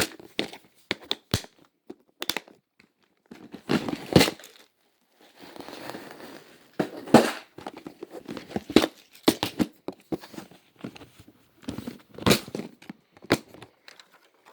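Crinkling and rustling of small packets of spare transistors being handled and sorted, in irregular bursts with scattered sharp clicks.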